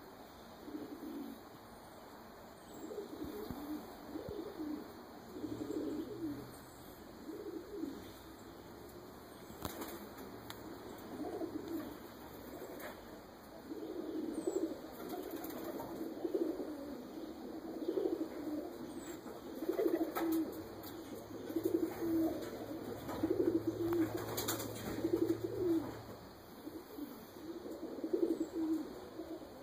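Domestic pigeons cooing close by in repeated low coos every second or two, with a few faint, short high chirps from a small bird.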